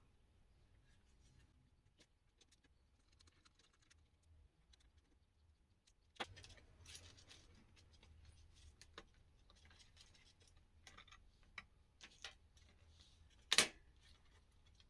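Faint clicks, taps and light scraping of small laptop parts and tools being handled during disassembly, sparse at first and busier after about six seconds, with one sharper, louder click near the end.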